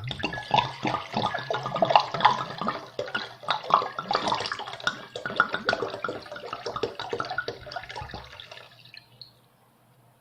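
Water poured from a wine bottle into a bowl, splashing and glugging in an irregular stream. It starts abruptly, thins out and stops about nine seconds in.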